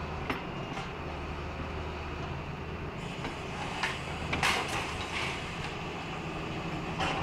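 Caterpillar excavator's diesel engine running steadily while its demolition attachment tears into a wrecked building, with sharp cracks and crashes of breaking debris, several in quick succession about four to five seconds in and another near the end.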